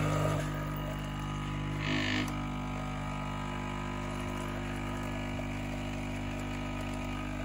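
Tassimo pod coffee machine brewing, its pump humming steadily as coffee pours into the cup, with a brief hiss about two seconds in.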